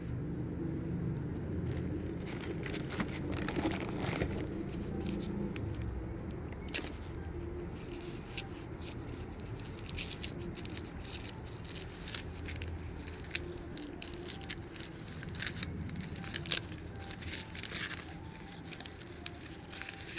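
Handling noise: scattered small clicks and scrapes, as of stones and packing being picked up and turned over, over a low steady rumble.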